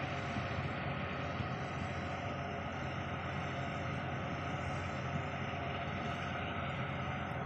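Steady mechanical drone with an even hiss and several steady hum tones, holding at one level throughout.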